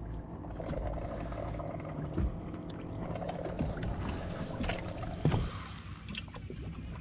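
Water lapping and gurgling against a drifting fishing boat's hull, over a low steady hum, with a few sharp knocks about five seconds in.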